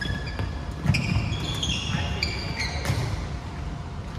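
Court shoes squeaking on a wooden sports-hall floor during badminton play: a quick run of short, high squeaks, mixed with sharp taps and heavy footfalls, the loudest thud about a second in.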